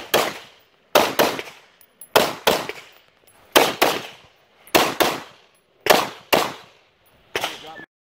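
Semi-automatic carbine firing rapid pairs of shots, about one pair a second, with echoes off the berm after each shot. The last shot is fainter, and the sound cuts off just before the end.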